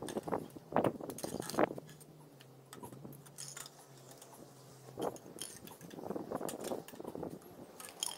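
Hollow plastic tubes and snap-on connectors of a toy archery target stand clacking, clicking and knocking as they are pushed together, handled and set down on concrete, in irregular bursts. A low steady hum sits underneath until about five seconds in.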